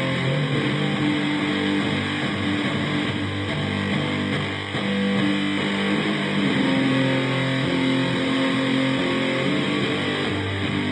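Heavily distorted electric guitar playing slow, droning improvised riffs, holding notes for a second or two at a time with a brief dip about halfway through.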